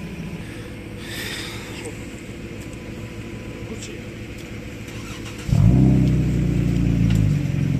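Off-road SUV engines running at a distance, a low steady rumble. About five and a half seconds in, a much louder engine close by comes in suddenly and keeps running with a steady low drone.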